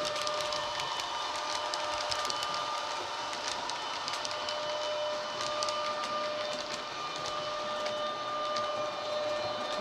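Model Railjet train's sound decoder playing electric-train running sounds through its small speaker: a steady whine in two held tones, with scattered sharp clicks from the running gear on the track.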